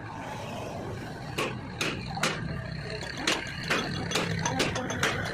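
A steady low engine hum under a series of irregular sharp knocks, starting about a second and a half in and coming faster towards the end.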